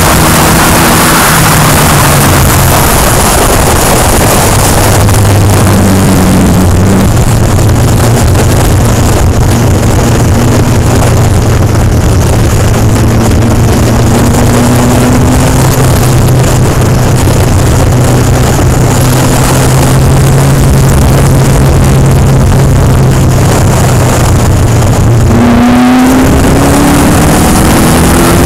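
Engine of an open-cockpit track car at speed, under heavy wind rush on the onboard microphone; the engine holds a steady note for most of the time, then near the end it breaks off briefly and rises in pitch as the car accelerates.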